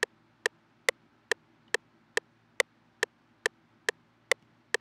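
A steady pulse of sharp, identical electronic clicks, evenly spaced at a little over two a second (about 140 a minute), from an electronic music setup.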